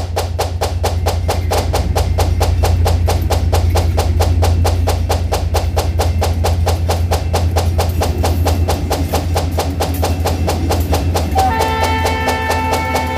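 Background music with a fast, steady percussive beat over a deep sustained bass; a melody comes back in near the end.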